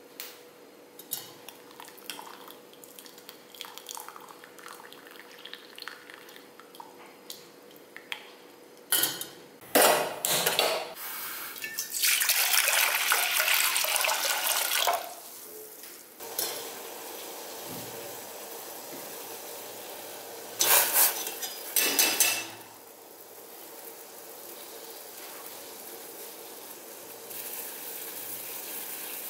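Steel kitchenware clattering, then water poured into a steel pot of chopped onions for about three seconds, with two more short splashes a little later. The pot then settles into a steady bubbling hiss as the water heats toward the boil.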